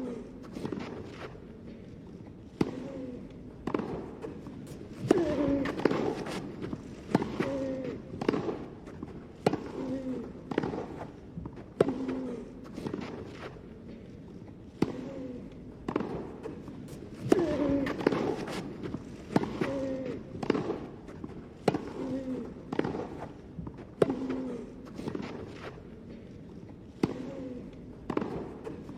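Tennis rally: racket strikes on the ball about once a second, back and forth, many of them with a short vocal grunt from the hitting player.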